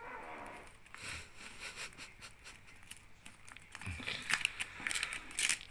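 Paper mailer envelope being slit and torn open along its end: light scratching and crinkling of paper, with denser, sharper tearing crackles near the end.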